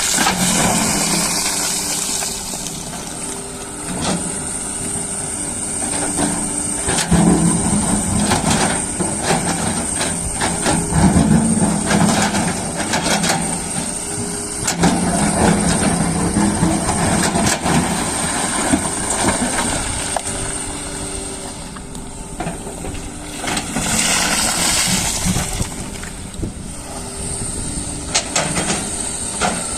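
Doosan excavator's diesel engine working, its note rising and falling with the load as it digs, with scattered knocks and two bursts of hiss, one at the start and one near the end.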